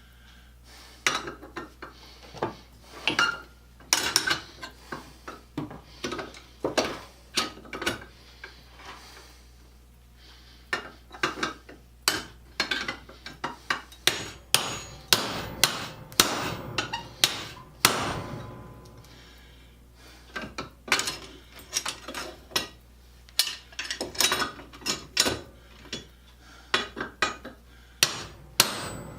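Hammer blows on a steel rivet, peening it over to join the treadle parts of a grinder. The sharp strikes come in irregular runs with short pauses between them.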